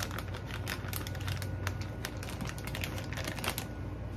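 Plastic Ziploc freezer bag crinkling and crackling in quick irregular clicks as it is handled with a chop inside, dying away near the end, over a low steady hum.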